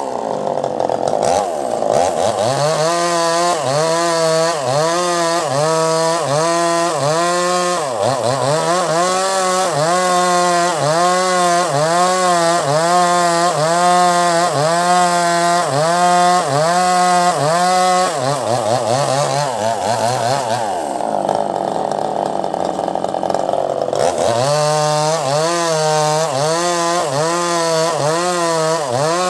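Two-stroke gasoline chainsaw ripping lengthwise along the grain of a rambutan log. The engine pitch rises and falls about one and a half times a second as the saw is rocked through the cut under load. For a few seconds just past the middle the swinging stops and the engine holds a steadier note before the rocking resumes.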